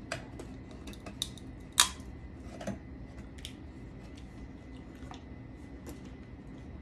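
Irregular small clicks and cracks of crab shell being picked apart by hand, with one sharper crack about two seconds in, over a low steady room hum.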